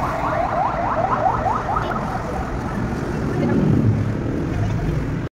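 Electronic alarm sounding a rapid run of identical rising chirps, about five a second, which fades out about two seconds in, over a steady background rumble.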